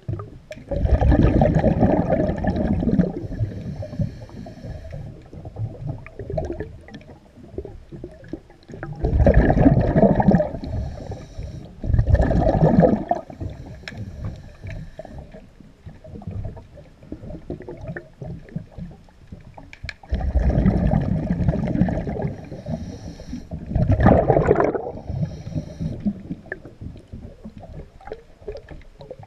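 A diver breathing underwater: five loud bursts of exhaled air bubbles rumbling and gurgling, each lasting one to three seconds, with quieter water noise and small knocks in between.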